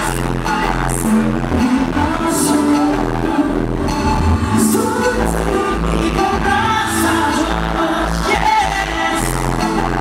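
Live pop music played over an arena sound system: a boy band's song with singing over a heavy bass line and beat, with a sharp percussive hit about every two seconds.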